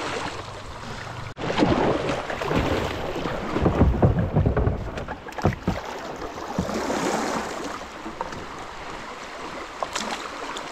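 Fast river water rushing and splashing around a kayak, with gusts of wind buffeting the microphone in the first half.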